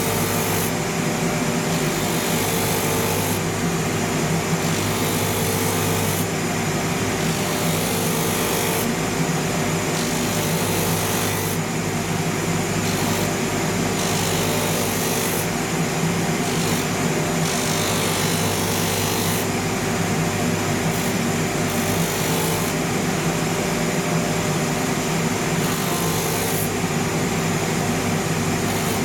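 Rotary sandpaper wheel of a shoe-finishing machine running with a steady motor hum, while a leather outsole is pressed against it in repeated strokes of about two seconds. Each stroke gives a rasping hiss as the paper strips the grain surface off the sole.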